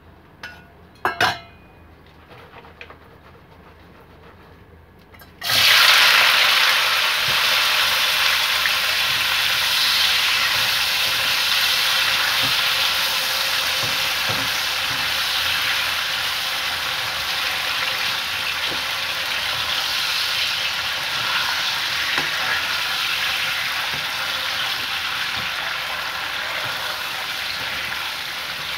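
Raw potato sticks for French fries hitting hot oil in a deep pan about five seconds in, setting off a sudden loud, steady sizzle of deep-frying that keeps going, with a few faint scrapes of a spatula stirring them. Before that, two sharp knocks about a second in.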